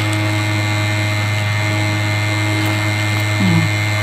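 A steady low hum with a few fainter steady higher tones, unchanging throughout. A brief vocal sound comes near the end.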